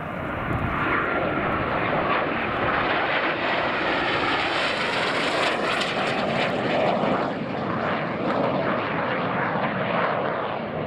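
Low-flying aircraft passing through a valley on a low-level flypast, its engine noise swelling to a peak around the middle and easing a little toward the end.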